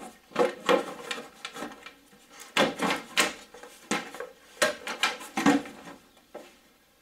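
Black plastic air filter housing of a VW Golf VR6 being worked loose and lifted in the engine bay: a series of irregular plastic knocks, clunks and scrapes, dying away about six seconds in.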